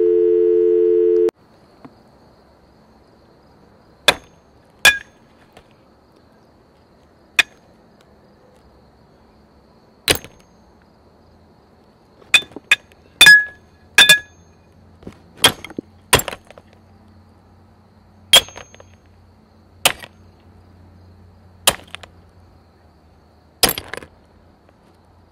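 Telephone dial tone, two steady tones together, cutting off about a second in. Then a ceramic teacup is struck and smashed again and again: a dozen or more sharp cracks with a brief ringing, at uneven intervals and sometimes in quick pairs.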